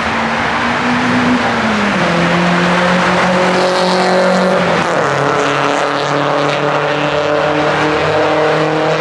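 Dodge Scat Pack's 6.4-litre HEMI V8 held at steady high revs. Its pitch drops about two seconds in and changes again about five seconds in.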